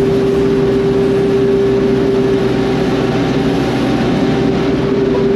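Farm machinery running steadily: an engine's rough low rumble under one constant high whine that holds the same pitch throughout.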